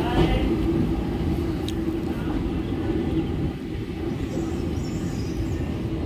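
Passenger train rolling past a station platform: a steady rumble of wheels on rails with a steady hum, heard from on board.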